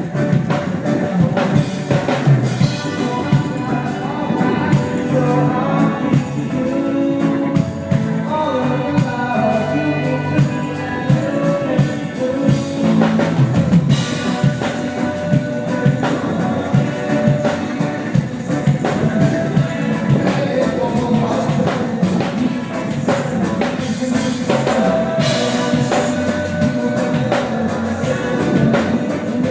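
Live rock band playing a reggae-rock song with a steady drum-kit beat, bass and guitar, with singing over it, loud and continuous.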